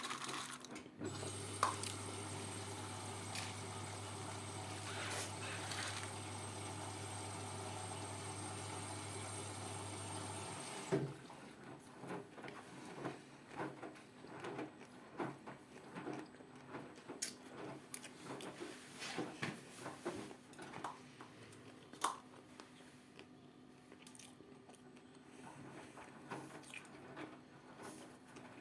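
Ariston 4.5 kg washing machine taking in water at the start of a cotton wash: a steady rush of water with a hum, which cuts off suddenly about ten seconds in. After that come scattered light clicks and splashes.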